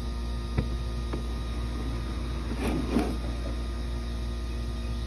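A few light clicks and a brief rustle from a gloved hand handling parts in a car's engine bay, over a steady low hum.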